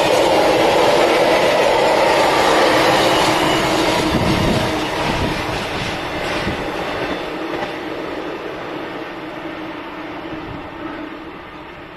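Bogie tank wagons of a fuel oil train rolling past on the rails, wheels clattering over the track. Loud for the first few seconds, then fading steadily as the tail of the train draws away.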